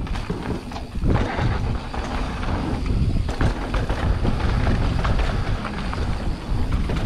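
Mountain bike descending a dirt trail: tyres rolling over dirt and the bike rattling, with wind rumbling on the microphone, louder from about a second in.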